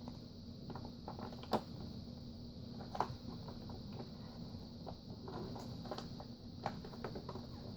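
Scattered light clicks and knocks of a vacuum cleaner and its parts being handled, the vacuum itself switched off, over a faint steady hum.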